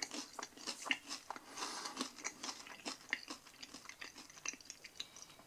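Close-up chewing of a mouthful of crispy deep-fried onion ring: a quick, irregular run of soft crunches, thinning out toward the end.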